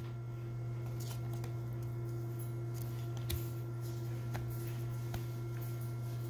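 Trading cards being handled and swapped from one to the next, a few soft clicks and slides, over a steady low hum.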